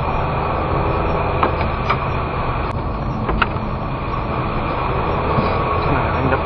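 Steady engine and tyre noise inside a car's cabin as it drives along a mountain road, with two brief clicks about three seconds in.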